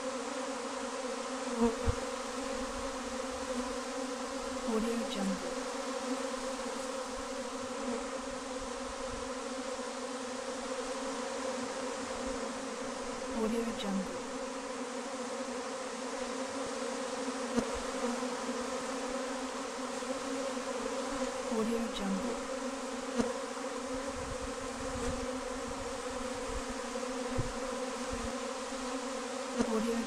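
Honeybees massed at a hive, humming as a steady, layered drone, with single bees buzzing close by every few seconds.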